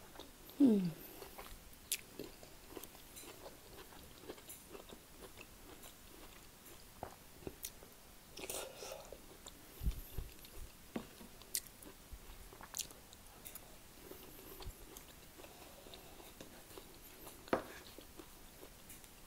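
Close-up chewing and biting of a roast dinner, with scattered light clicks of a metal fork on a wooden serving board. A brief falling hum of the voice comes about half a second in.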